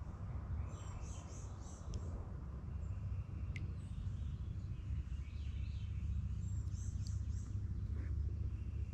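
Birds chirping in short high phrases, about a second in and again around seven seconds, over a steady low rumble.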